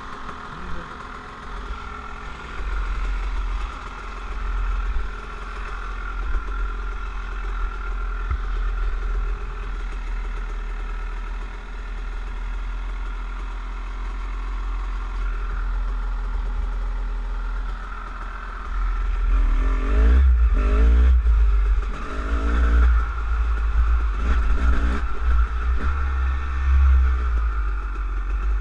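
Off-road dirt bike engine heard from the rider's own bike, running steadily at low speed along a muddy track. From about two-thirds of the way in it revs up and down repeatedly and gets louder as the throttle is worked over rough, wet ground.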